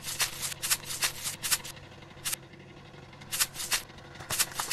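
Baking soda being applied by hand from its cardboard box onto a banana-coated alloy wheel rim: a string of short, scratchy rasping strokes in quick groups, with brief pauses about two seconds in and again a little later.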